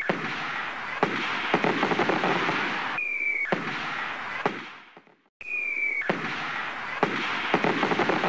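Fireworks sound effect: a short whistle falling slightly in pitch, then a burst into a long fizzing crackle with sharp pops. The sequence repeats about three seconds in, fades to a brief silence near five seconds, and starts over.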